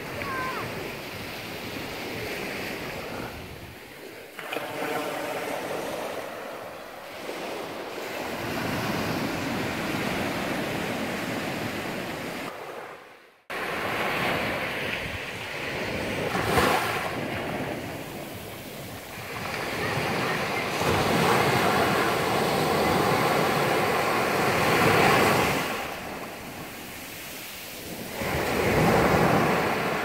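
Small waves breaking and washing up a sandy beach, the surf swelling and falling back every few seconds. The sound drops out for a moment about halfway through, then the surf comes back.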